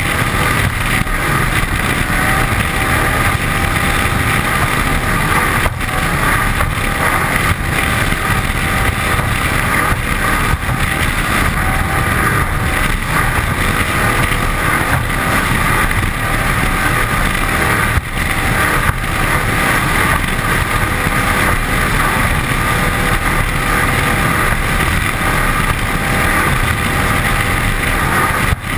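Cigarette 27 Squadron offshore powerboat running at speed: the steady drone of its 540 cubic-inch V8 mixed with rushing spray off the hull and wind on the microphone.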